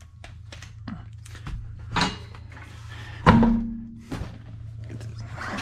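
A car wheel being pulled off its hub, giving light knocks and scrapes and then a loud thunk with a brief metallic ring about three seconds in as the wheel comes free. A steady low hum runs underneath.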